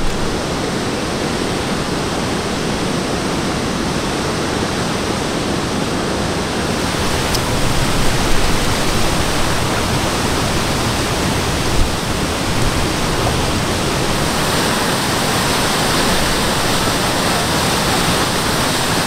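Waterfall rushing: white water pouring over rock ledges into a river, a loud, steady hiss that grows a little brighter about seven seconds in.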